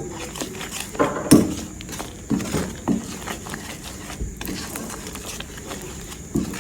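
Spoon knocking and scraping against a pot as hot ginger caramel is stirred, in irregular strokes with a few louder clacks between one and three seconds in.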